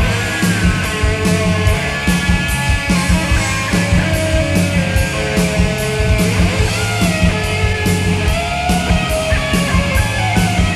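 Rock music with guitar over a steady, driving drum beat.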